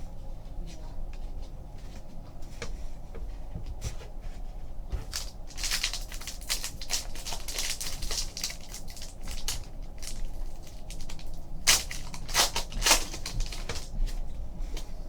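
Trading cards and a foil card pack being handled: crinkling, rustling and small clicks, with two busier spells of crinkling, one starting about five seconds in and another near the end.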